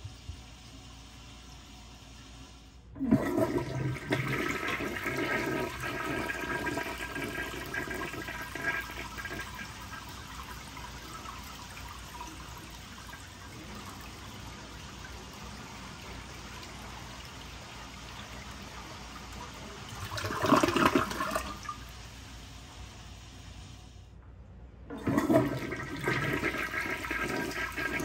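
A 1973 Kohler Placid siphon-jet toilet flushing: a loud rush of water starts suddenly about three seconds in and slowly eases, with a brief louder surge about twenty seconds in. It breaks off suddenly around twenty-four seconds, and a fresh flush starts a second later.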